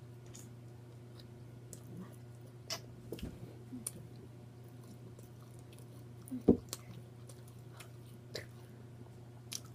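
Close-miked chewing with scattered wet lip-smacks and mouth clicks, the loudest a sharp smack about six and a half seconds in, over a steady low hum.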